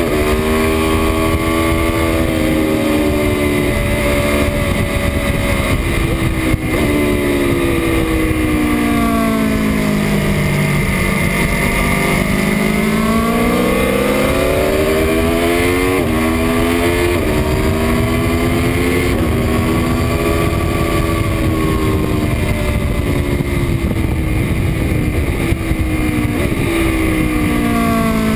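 Aprilia Tuono V4's 1077 cc V4 engine on track, pulling hard through the gears with sudden drops in pitch at each upshift. Partway through, the pitch falls over a few seconds as the bike slows for a corner, then climbs again as it accelerates. A steady rush of wind is heard throughout.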